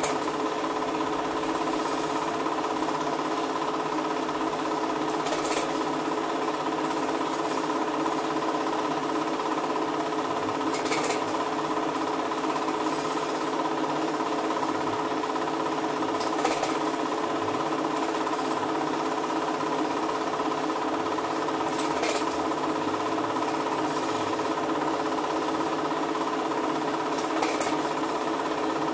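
Cine film projector running: a steady, rapid mechanical clatter with a constant motor hum, and a brief click about every five and a half seconds.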